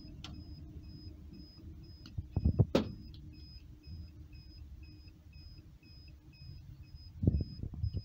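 A faint, high-pitched electronic beep repeating at a steady fast pace, over a low steady hum. Handling knocks and a sharp click from the cable and hand tool come about two and a half seconds in, with another knock near the end.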